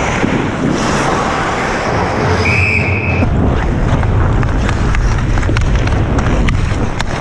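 Ice hockey game heard through a goalie's helmet-mounted camera: a steady low rumble and rustle of gear noise, with scattered clicks of sticks and puck on the ice. One short, high whistle blast comes about two and a half seconds in.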